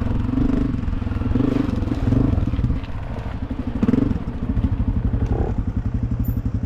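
Dirt bike engine running under way, the revs rising and falling for the first few seconds, then settling into a low, even chug from about halfway through.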